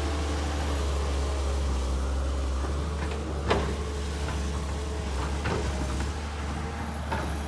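Kobelco SK200 hydraulic excavator's diesel engine running steadily, with a few short clunks, the loudest about three and a half seconds in.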